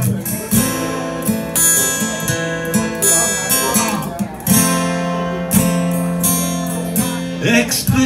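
Acoustic-electric guitar strummed in a steady rhythm, its chords ringing on between strokes.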